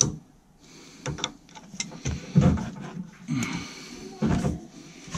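Irregular clicks, knocks and scrapes of pliers working a metal clamp onto a corrugated plastic dishwasher drain hose, with the hose rubbing as it is handled.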